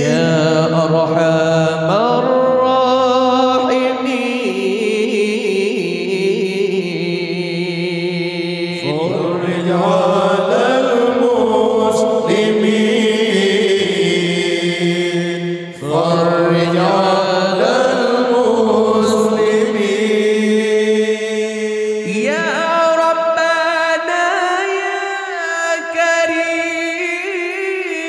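Male vocal group singing Islamic sholawat a cappella through microphones: voices holding harmony under a lead voice's long, ornamented melismatic lines, in long sustained phrases without clear words.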